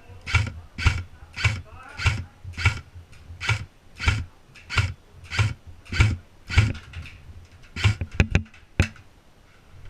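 Footsteps walking at a steady pace, each step a soft thump with a scuff, a little under two a second. Near the end come a few short sharp clicks.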